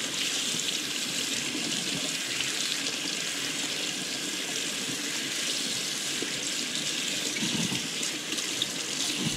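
Kitchen faucet running steadily into a stainless steel sink, the stream splashing over a fish held under it as its slime is rubbed off.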